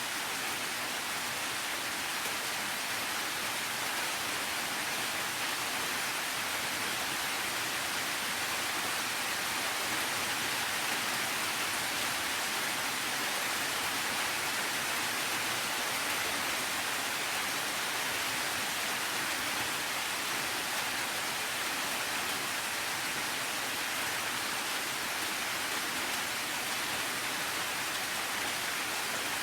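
Steady rain falling, an even, continuous hiss with no separate drops or swells standing out.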